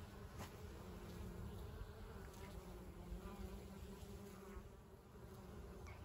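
Bees buzzing around garden flowers: a steady hum that fades a little after about four seconds.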